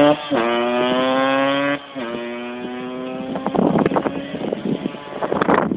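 Yamaha DT 125 two-stroke motorcycle engine accelerating through the gears: its pitch climbs, drops at a gear change about a third of a second in, climbs again, and drops at a second shift near two seconds. The pitch then holds roughly steady and fades under rushing wind noise in the last couple of seconds.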